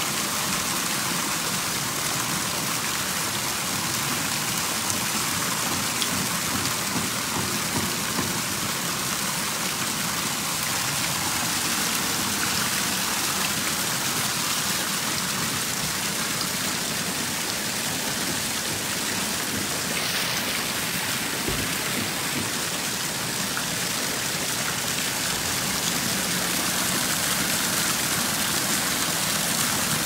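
Water wall fountain: several spouts pour sheets of water down a stone-clad wall into a basin, making a steady splashing of falling water.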